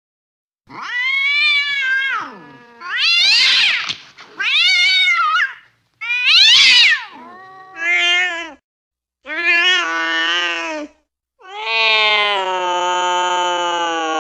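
Angry cat yowling: a string of about seven drawn-out calls that rise and fall in pitch, with short gaps between them. The last call is long and held.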